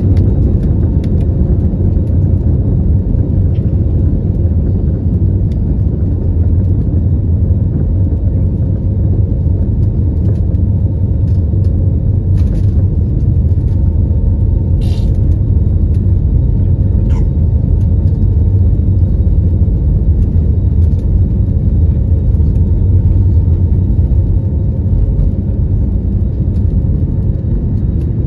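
Cabin noise over the wing of an Airbus A321neo on its takeoff roll: its Pratt & Whitney PW1133G geared turbofans at takeoff thrust and the wheels rumbling on the runway make a steady, loud rumble. It eases slightly near the end as the aircraft rotates.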